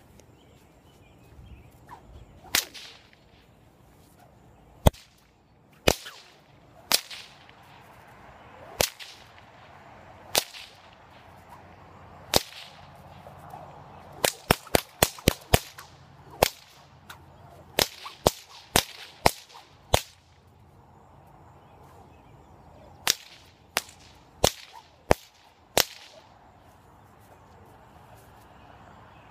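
A 5.5-foot, 12-plait waxed bullwhip with a shot-loaded core being test-cracked. Sharp cracks come one to two seconds apart at first. About halfway through a quick run of six cracks in under two seconds follows, then more cracks about half a second apart in two further groups.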